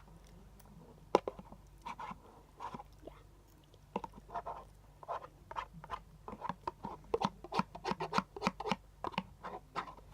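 Eating sounds: food being scraped from the sides of a deli box, and chewing, heard as a run of short clicks and scrapes that grows busier from about four seconds in.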